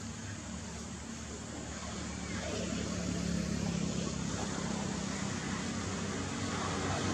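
Steady low engine hum over background noise, slowly growing louder.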